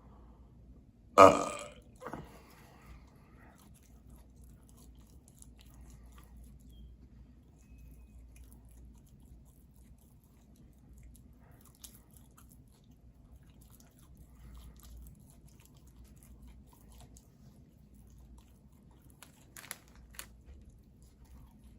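One loud, short human burp about a second in, then faint scattered mouth clicks.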